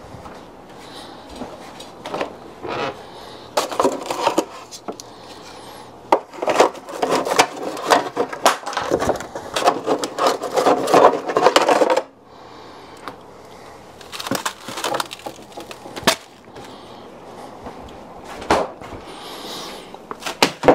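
Crinkling and crackling as frozen banana and watermelon scraps are handled and pulled apart. It is dense from about six to twelve seconds in, stops suddenly, and leaves a few scattered clicks.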